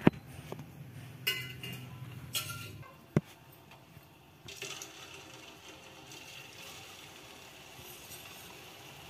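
A few sharp clinks of a steel spoon against a metal pot, then, from about four and a half seconds in, a steady sizzle as strands of kurkure dough fry in hot oil.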